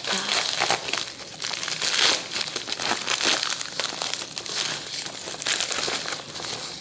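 Plastic shipping mailer bag crinkling and rustling as a hand rummages inside it, a dense irregular run of crackles.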